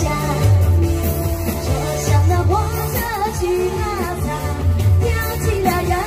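Woman singing a Chinese pop song into a handheld microphone, amplified, over a backing track with a steady bass line and beat.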